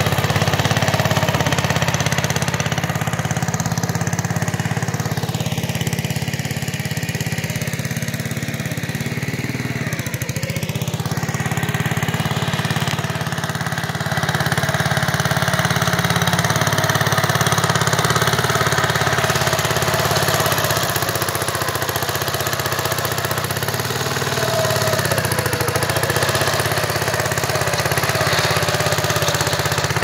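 Engine of a 1960s Essick tandem road roller running steadily under way, a loud, even, rapid-firing chug.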